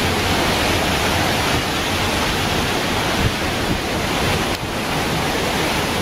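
Hurricane wind and rain: a loud, steady rush of gusting wind through the trees with driving rain, the wind also buffeting the microphone.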